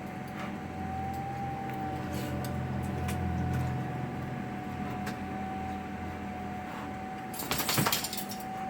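Combination oven/microwave running a popcorn cycle: a steady hum with a thin steady tone, broken by scattered faint clicks as the first kernels begin to pop, and a short cluster of sharper clicks near the end.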